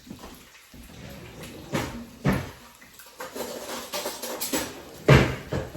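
Kitchen clatter: a few knocks of pans, dishes or utensils, the loudest about five seconds in.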